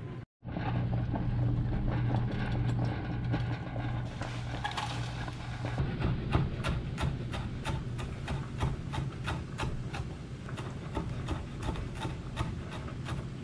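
Chef's knife chopping fresh herbs on a wooden cutting board: a quick, regular run of knocks about three a second, starting about six seconds in. Before it come softer rubbing and scraping sounds of the leaves being handled and gathered on the board.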